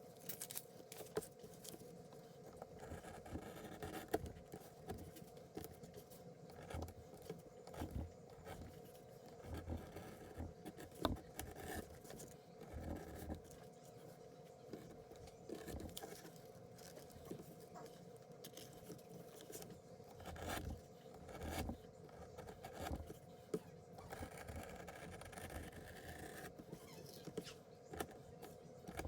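Scattered scrapes, rustles and sharp clicks of objects being handled, over a steady low hum.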